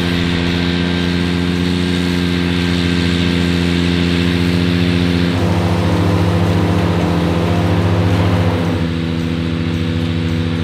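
Ventrac 4500 compact tractor's engine running steadily with its five-blade wide area mower deck cutting heavy grass and foxtail. The sound shifts about five seconds in and gets a little quieter near nine seconds.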